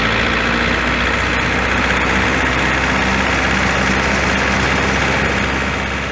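Tractor engine running steadily, with a low hum. It fades slightly near the end.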